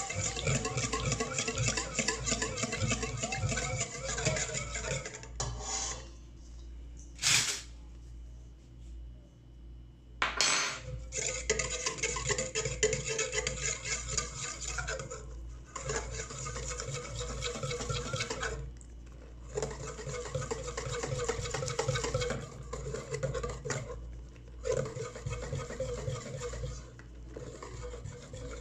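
Whisk scraping and clattering quickly around a stainless steel mixing bowl, beating a liquid batter and then working in flour. The whisking stops briefly about six seconds in, with two sharp knocks during the pause, then resumes in bursts of a few seconds each.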